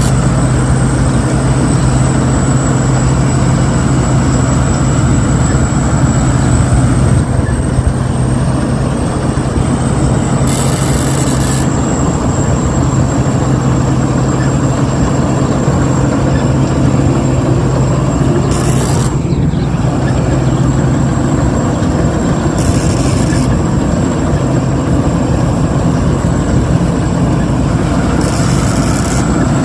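Rice combine harvester running steadily while cutting and threshing, a constant loud engine drone with a thin high whine, and brief hissy bursts a few times.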